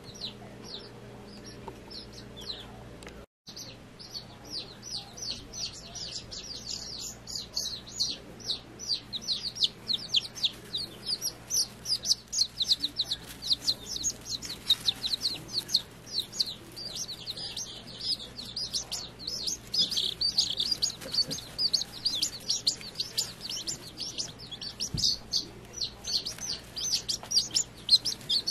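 A brood of young chicks peeping continuously: many short, high chirps a second, each falling in pitch, growing busier after a brief gap about three seconds in.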